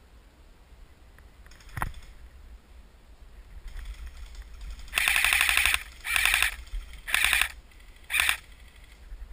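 Airsoft rifle fired full-auto in four short bursts of rapid clicking shots, the first the longest, from about five seconds in. A single sharp snap comes earlier.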